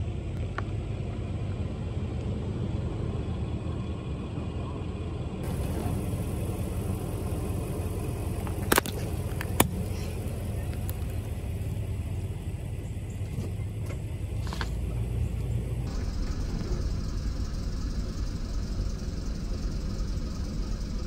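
A car running with a steady low rumble as its tyre rolls slowly over items. About nine seconds in, two sharp pops come under a second apart as plastic applesauce squeeze pouches burst under the tyre, and a smaller pop follows a few seconds later.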